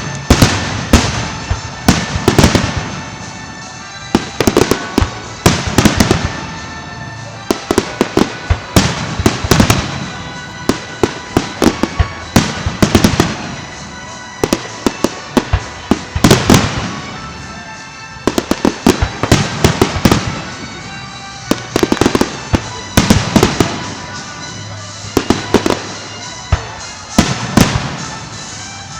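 Aerial fireworks bursting in rapid volleys of sharp bangs and crackles, with the explosions echoing. The clusters of bangs come every second or two.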